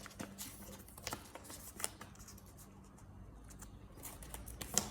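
Paper packaging being handled: soft rustles and small scattered clicks as the Apple sticker and paperwork packet from an iPad box is taken out, over a faint steady hum.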